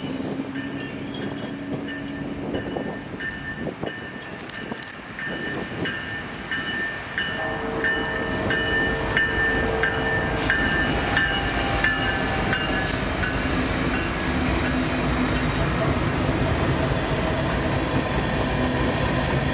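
A BNSF diesel-electric freight train approaches and passes: the lead locomotives' engines run, with some steady tones, and the sound grows louder about a third of the way in. Then empty coal hopper cars roll by on steel wheels in a steady rumble.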